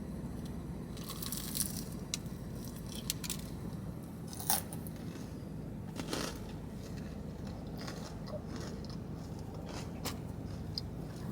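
A person chewing a Cinnabon Churro Swirl pastry: soft, scattered mouth clicks and smacks over a steady low hum.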